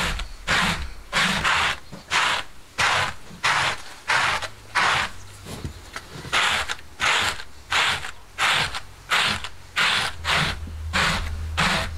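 Quick, regular scraping strokes of a wooden hand brush drawn over the wool pile of a hanging sheep-wool lizhnyk blanket, a little under two strokes a second, with a brief pause about halfway.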